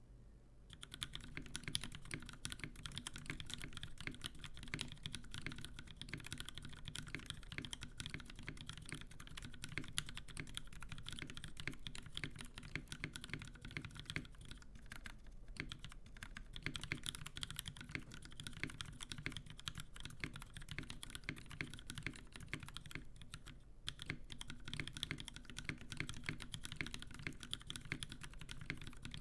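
Mechanical keyboard with lubed Kailh Pro Burgundy linear switches on an FR4 plate, GMK keycaps, typed on quickly and continuously. Typing starts about a second in, with two brief pauses along the way.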